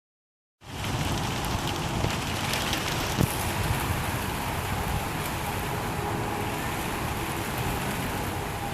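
Steady rain falling on leaves, with scattered drop taps and a low rumble of wind on the microphone. A sharper tap comes about three seconds in.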